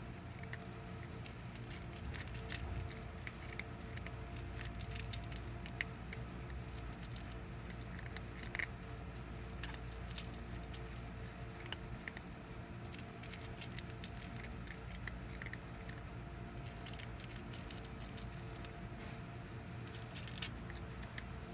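Cat lapping water: a run of soft, irregular wet clicks and taps, with a steady low hum underneath.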